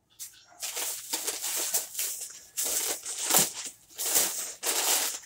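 Rustling and crinkling of things being handled and rummaged through, in a string of uneven bursts with short gaps, starting about half a second in.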